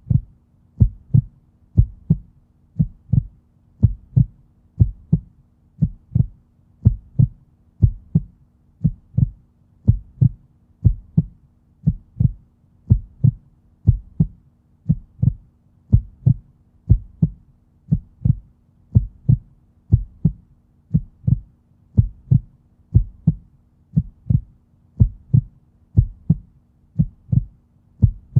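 Heartbeat: deep thumps about twice a second, alternating stronger and weaker in a lub-dub pattern, at a steady, even pace. A faint steady hum sits underneath.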